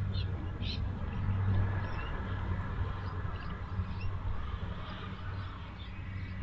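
Outdoor background with a steady low hum and a couple of short high chirps in the first second.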